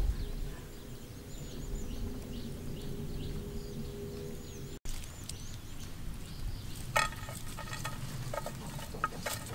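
Outdoor background noise with faint high bird chirps. Partway through, a few sharp clicks and clatters come in, the sound of a steel cooking pot and utensils being handled.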